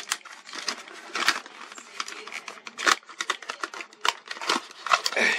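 Irregular clicks and rustles of plastic packaging being handled as a camera's protective housing is taken out of its box.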